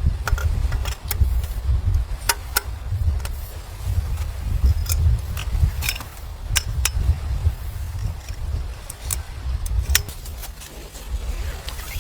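Wind buffeting the microphone in uneven gusts, with scattered sharp clicks and taps over it.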